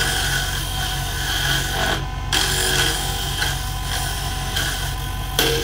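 WEN 3421 benchtop wood lathe running with a steady motor hum while a hand-held gouge cuts into a spinning wood blank, a rough scraping chatter as the blank is roughed toward round. The cutting drops out briefly about two seconds in, then resumes.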